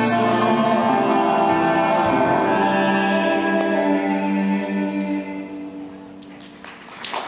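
The closing bars of a song with sung vocals: long held notes that fade out over the last couple of seconds. Applause breaks out right at the end.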